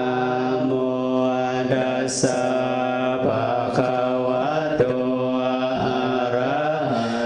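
Buddhist chanting recited on a nearly level monotone pitch, with brief dips in pitch now and then.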